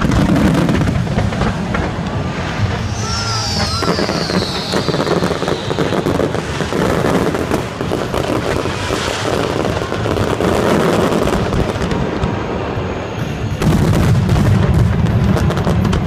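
Fireworks display in a dense barrage: many shells bursting at once in continuous crackling and booming, with a falling whistle about three seconds in.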